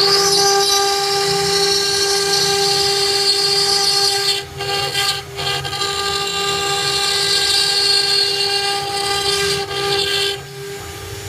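Acctek 1212 CNC router spindle running with a steady high whine while its engraving bit grinds into stone, adding a gritty cutting hiss. The cutting noise drops out briefly twice, about four and a half and five seconds in, and eases near the end.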